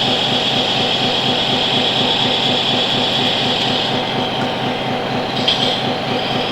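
Radio-controlled scale model truck running: a steady high whine from the electric drive over a regular rhythmic chugging.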